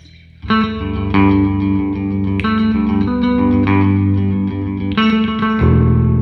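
Squier Bass VI, a six-string bass tuned like a guitar, played electric with the neck and bridge pickups together: picked notes ring on one after another, a new note about every second, starting about half a second in, with a deeper bass note coming in near the end.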